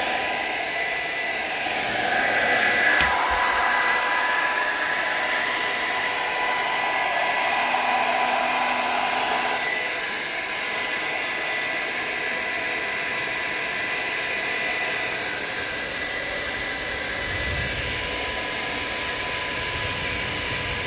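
Steady rush of air from an electric blower motor, such as a hair dryer, running continuously with a steady high whine over it.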